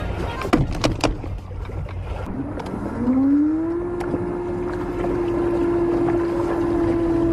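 A few sharp knocks, then a small boat motor spinning up, its pitch rising, and settling into a steady running hum. Wind on the microphone.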